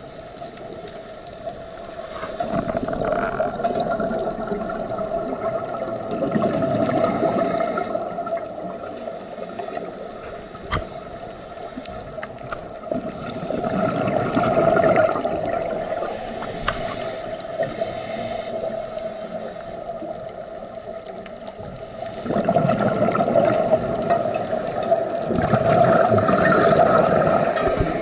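Scuba diver breathing through a regulator underwater: exhaled bubbles gurgle and rumble in swells every few seconds, over a steady underwater hum.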